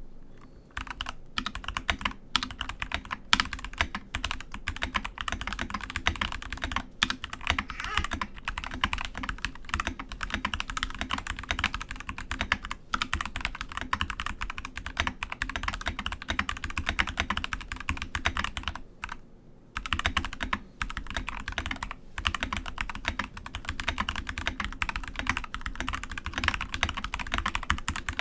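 Keychron V3 TKL mechanical keyboard with brown switches being typed on quickly and continuously, a dense run of key clacks with a short pause just before the halfway point.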